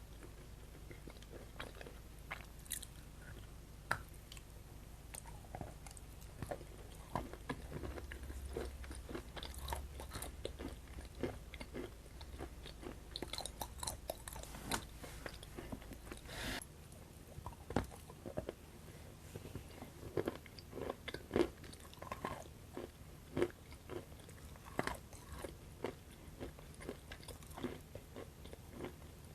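A person chewing and biting chocolate close to the microphone, with many short crunchy clicks and mouth sounds. A faint low hum in the background stops suddenly about sixteen seconds in.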